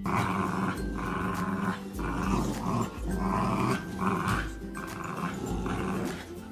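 Boxer puppy and merle puppy growling while tugging on a toy in a play tug-of-war: a run of short rough growls, about one a second. Background music with a steady beat runs underneath.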